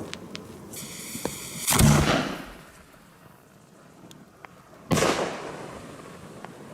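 Two loud firework bangs about three seconds apart, from large firecrackers or salute shells, each echoing away. The first is preceded by a short high-pitched hiss.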